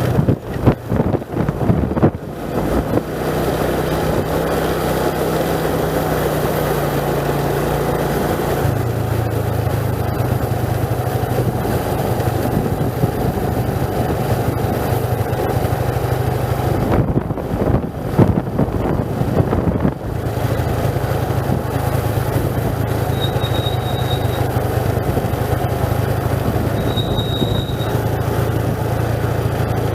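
A vehicle's engine running steadily on a downhill mountain road, its pitch stepping down once. Wind buffets the microphone at the start and again around two-thirds of the way through, and two brief high squeaks come near the end.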